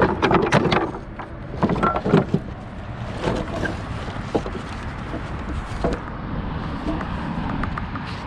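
Wooden boards knocking and clattering as they are handled, a few sharp knocks in the first couple of seconds, then a steady hum of street noise.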